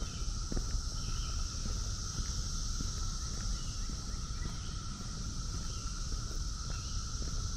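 Chorus of Brood X periodical cicadas: a steady, unbroken drone with a lower hum and a higher hissing buzz layered together, over a low, uneven rumble.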